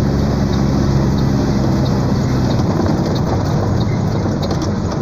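Small truck's diesel engine running steadily, heard from inside the cab while descending with the engine brake on.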